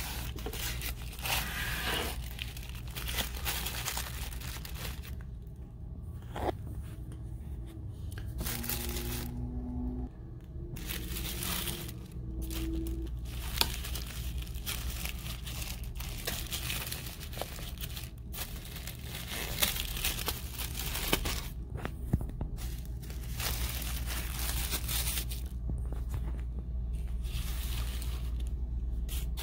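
Tissue paper crinkling and rustling as hands unfold the wrapping, in irregular stretches with short pauses between them.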